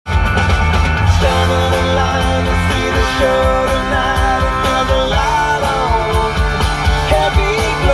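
Rock music with a singing voice carrying a wavering melody over a steady bass.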